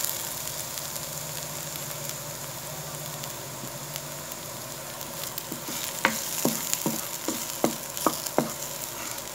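Chopped garlic sizzling in a little oil in a nonstick wok, a steady hiss. From about six seconds in, a wooden spatula stirs it, tapping and scraping the pan about twice a second.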